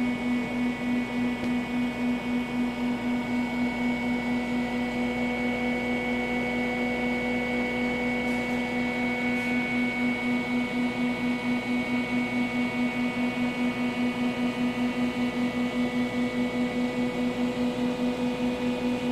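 Steady machine hum, a strong low tone with fainter higher ones, pulsing evenly several times a second.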